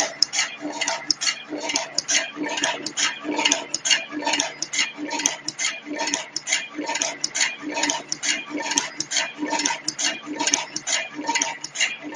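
Automatic single-end wire cut, strip, twist and crimp machine (LL 551+T) running in production, cycling with a fast, regular clatter of metallic clicks and knocks, about two to three a second, as it cuts wires, strips them and crimps terminals onto them.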